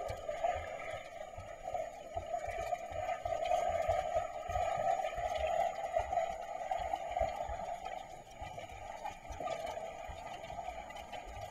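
Muffled underwater sound picked up by an action camera sealed in a waterproof housing: a steady mid-pitched hum with irregular low knocks throughout.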